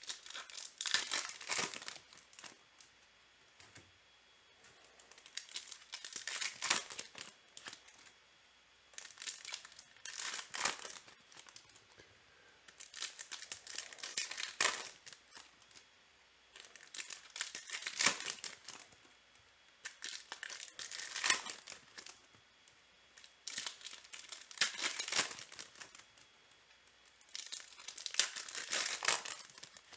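Foil wrappers of trading card packs crinkling and tearing as they are opened by hand, one pack after another in bursts of about two seconds every three to four seconds.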